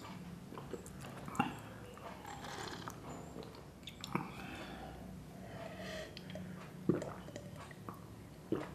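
A man sipping from a clay mug: soft slurps and swallows, with a few sharp clicks, the loudest about a second and a half in and again near seven seconds.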